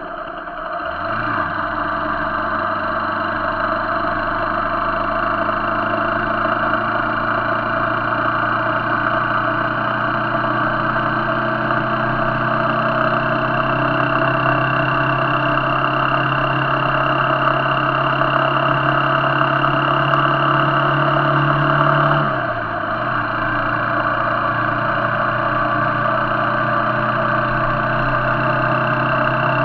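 Motorcycle engine running under way, with rushing wind and road noise. The engine note climbs about a second in, holds steady while rising slowly, then dips briefly about 22 seconds in and picks up again.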